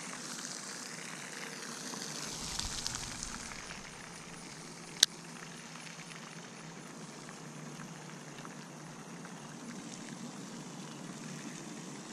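Baitcasting reel being cranked to retrieve a lure, a soft steady whir, with one sharp click about five seconds in.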